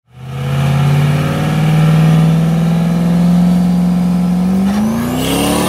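Duramax turbo-diesel V8 in a drag truck, held at steady high revs, then revving higher about five seconds in as a turbo whistle climbs with it.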